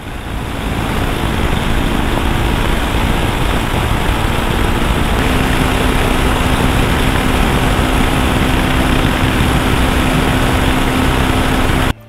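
Heavy wind rush on the rider's microphone over a motorcycle engine cruising at highway speed. A steady engine drone comes in about five seconds in and holds.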